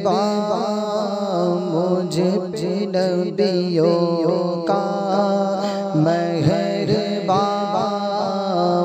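Chanted devotional singing of a naat's opening, a voice carrying a gliding melody over a steady low drone.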